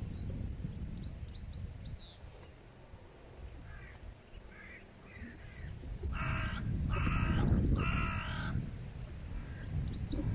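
A crow cawing three times, about a second apart, each caw harsh and about half a second long, over low wind rumble on the microphone. Small birds chirp faintly near the start.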